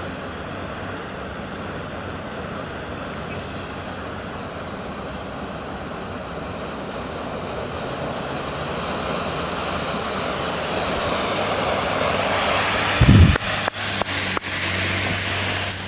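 Cars driving through deep flood water, the rush of spray from the tyres building as a car comes closer. A loud low thump about 13 seconds in, followed by a few sharp clicks.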